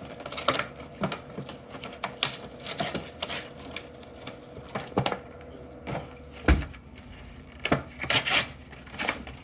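Soda cans being loaded by hand into a vending machine's drink column: irregular clicks and metallic knocks, with one heavier thump about six and a half seconds in.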